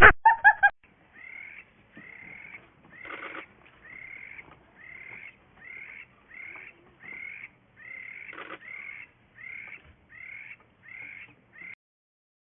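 Loud honking calls break off within the first second. A long series of faint, short animal calls follows, each dipping in pitch, roughly one or two a second, and stops shortly before the end.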